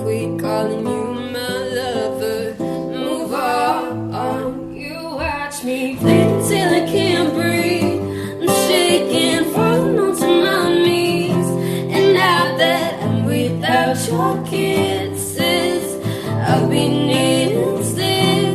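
A woman singing a slow ballad to acoustic guitar accompaniment.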